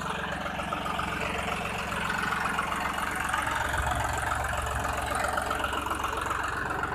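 Diesel engine of a John Deere tractor harvester running steadily, with a fast metallic rattle over it throughout. The low engine note grows a little fuller about halfway through.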